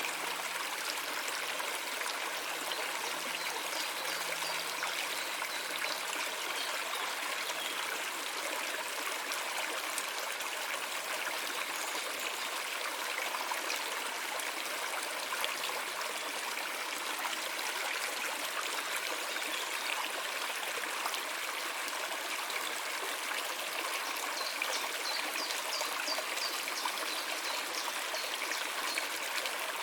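Steady rushing and trickling of water in a flowing stream.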